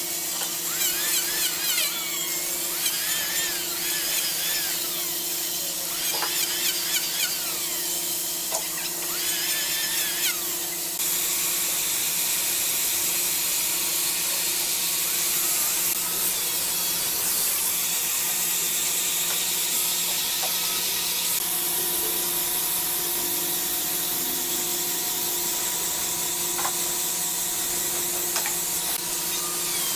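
Hand-held power tool running on a solid-wood slab with a steady high whine. For the first few seconds the pitch wavers up and down. About eleven seconds in, a steady hiss of the tool working the wood joins it.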